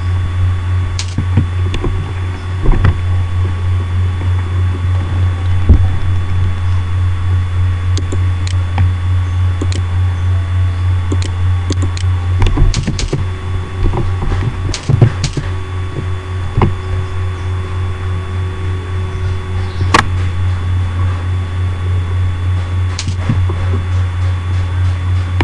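A steady low hum, with scattered sharp clicks of a computer mouse and keyboard keys as drawing commands are entered.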